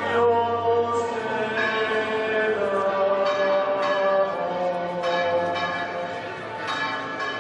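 Church bells pealing, several bells struck in turn with their tones ringing on and overlapping.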